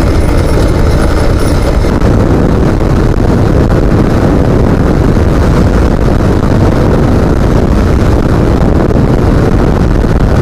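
Motorcycle riding at road speed, its engine running steadily under a heavy, even rush of wind noise on the microphone.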